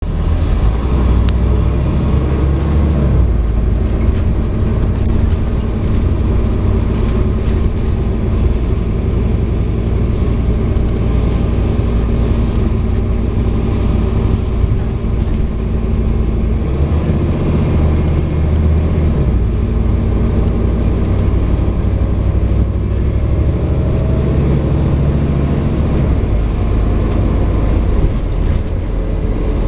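A Scania N230UD double-decker bus with an ADL Enviro400 body, heard from inside the passenger saloon while it is under way. Its five-cylinder 9-litre diesel runs steadily with road noise, and the engine note shifts in pitch a few times.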